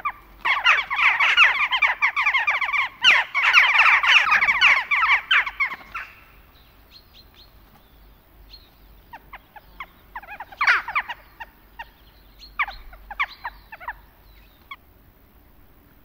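A flock of western jackdaws calling: a dense chatter of short, sharp calls for about six seconds that stops suddenly, followed by scattered single calls.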